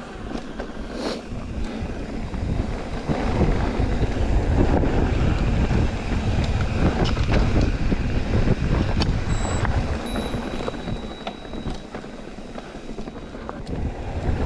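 Wind buffeting a chest-mounted GoPro's microphone during a mountain bike ride, mixed with rumble from the bike on the trail and scattered clicks and rattles. It gets louder about three seconds in and eases off for a moment near the end.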